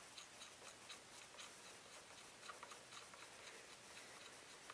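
Near silence with faint small ticks and scrapes: a choke tube being threaded by hand into the muzzle of a shotgun barrel.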